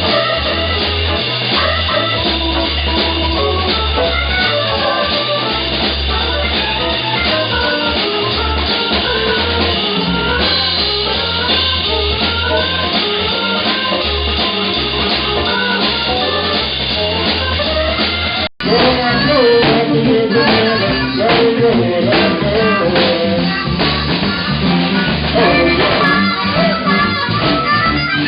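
Band music with a drum kit, bass and guitar, in a bluesy style; about two-thirds of the way through it cuts off abruptly and another piece of music takes over.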